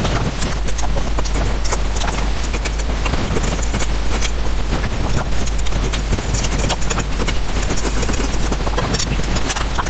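Close-miked eating sounds: slurping and chewing of saucy noodles, a dense, irregular run of wet mouth clicks and smacks.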